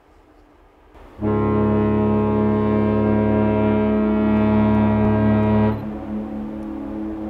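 Cruise ship's horn sounding one long, steady, deep blast that starts about a second in and cuts off sharply after about four and a half seconds, leaving a quieter hum.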